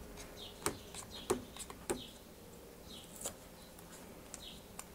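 Small clicks and taps of fingers handling a cardboard box and picking at its seal sticker. A small bird chirps in short high falling notes about once a second in the background.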